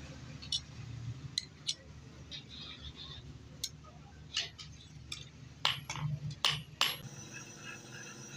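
Scattered light metallic clinks of a steel knife blade being handled against a steel anvil, about ten in all, the loudest bunched near the end, over a low steady hum. About seven seconds in, the hum gives way abruptly to a steady layered tone.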